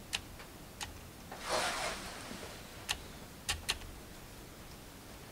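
Light handling noises while gasket maker is squeezed from a tube onto the oil pan gasket and timing-case joint: five small sharp clicks and one brief rustle about a second and a half in.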